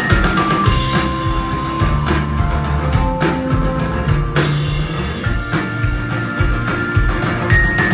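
Live rock band playing an instrumental passage: drum kit and guitars, with a short descending melodic riff that comes round again near the end.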